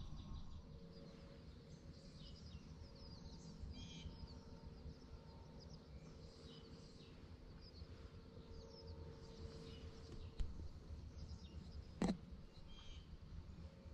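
Faint dawn birdsong: scattered short chirps and twitters from several birds over a low steady rumble. There is a single brief sharp sound about twelve seconds in.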